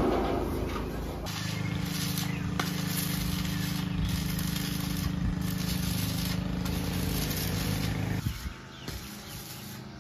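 Electric arc welding on a steel roof beam: a steady buzzing hum with a hiss over it, cutting off about eight seconds in.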